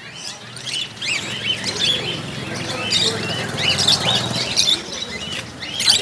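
A cage full of zebra finches calling: a dense run of short, overlapping chirps.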